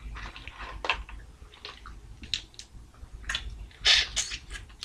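Close-up eating sounds: chewing with short wet mouth smacks and sucks, scattered through, the loudest cluster about four seconds in.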